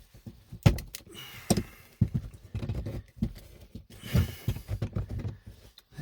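Plastic dashboard trim panel being pried at with a tool: irregular clicks, knocks and scraping as it strains against tight retaining clips. The sharpest knock comes a little under a second in.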